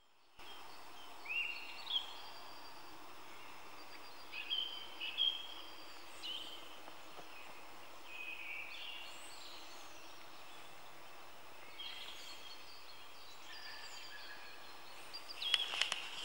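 Wild birds giving short, high calls every second or two over a steady background hiss. Footsteps on a gravel road begin near the end.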